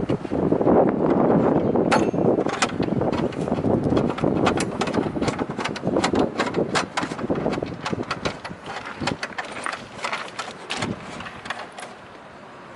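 Irregular metallic clicks and knocks of hand tools and bolts as a tornado siren's mounting hardware is fastened. Under them is a rushing of wind on the microphone that eases near the end.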